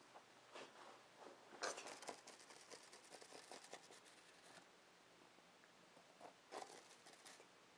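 Faint scratching and crackling on a sisal-rope cat scratching post, lasting about three seconds from a second and a half in, with a shorter scratchy burst near the end.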